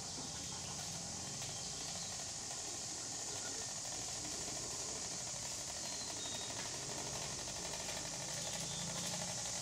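G-scale model cog train running on a rack-and-pinion garden railway, its pinion gear and wheels rattling along the track in a fast, even clatter over a steady high hiss.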